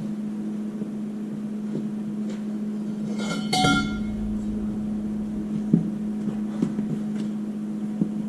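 Steel cheater bar and spanner wrench clinking against the D4 Cat's sprocket hardware as the bar is worked onto the wrench and strained on: one ringing metallic clink about three and a half seconds in, then a few light knocks, over a steady mechanical hum.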